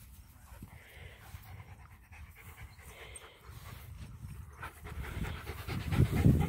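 A dog panting fast and close by, getting louder toward the end.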